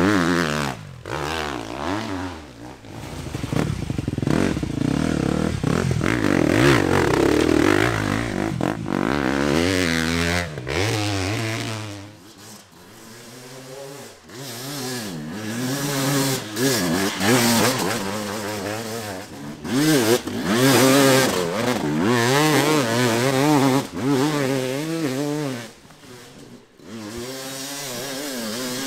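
Enduro dirt bike engines revving up and easing off over and over, the pitch rising and falling. The sound changes abruptly several times, switching from one bike to another.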